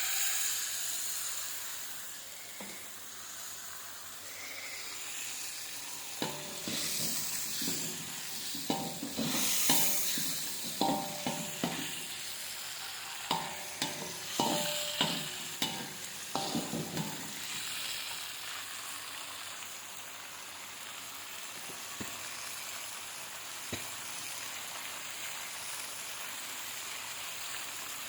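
Food frying in hot oil in a pan, a steady sizzle. From about six to seventeen seconds in, a utensil stirs and knocks against the pan in a run of irregular scrapes and taps.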